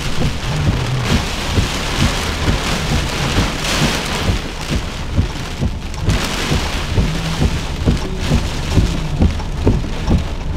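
Heavy rain from a severe thunderstorm falling hard, a dense steady patter of drops with many short low thuds of drops striking close to the microphone.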